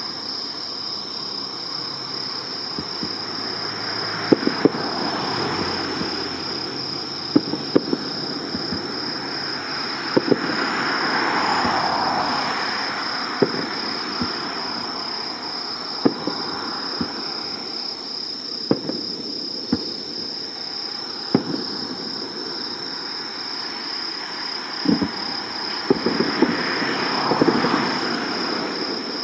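Fireworks going off: sharp bangs every second or two, with swelling hissy crackle at times. A steady high insect chirring runs underneath.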